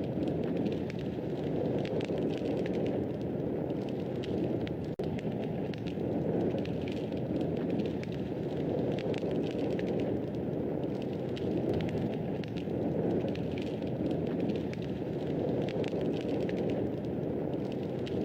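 Wood fire burning in a fireplace: a steady low rush of flames with frequent small crackles and pops scattered throughout. The sound drops out for a split second about five seconds in.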